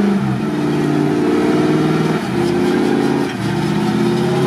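GAZ-66 truck's V8 petrol engine working hard as the truck pushes through deep mud, its revs dropping and picking up again several times.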